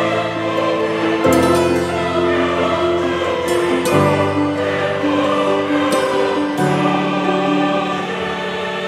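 Background music of slow, sustained choral chords, the chord changing about every two and a half seconds.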